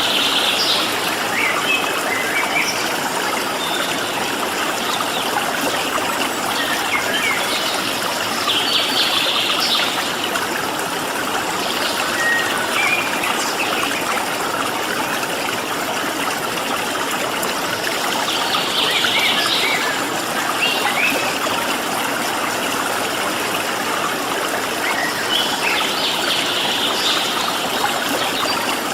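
Stream water flowing steadily, with wild birds chirping in short bursts of quick notes every few seconds above it.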